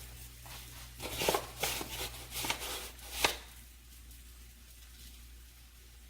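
A quick run of knocks and clatters on a hard kitchen surface, about half a dozen in two seconds, the last one the sharpest.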